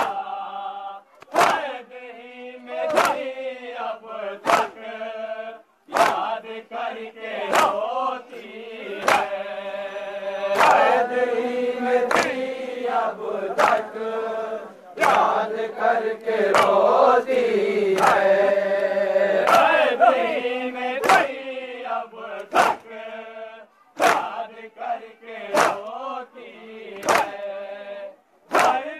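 Men's voices singing an Urdu noha (Shia mourning lament) in chorus with a lead reciter, broken by a sharp unison slap from the mourners' chest-beating (matam) about every second and a half, coming a little faster near the end.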